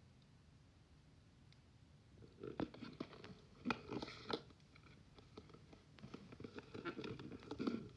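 Faint slurping and sucking through a plastic straw from a nearly empty cup, drawing up the last drops and air in irregular crackly bursts that start about two seconds in.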